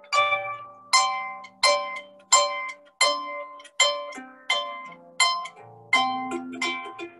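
Solo concert harp playing an instrumental passage: plucked notes and chords about every 0.7 seconds, each ringing out and fading, over held bass notes.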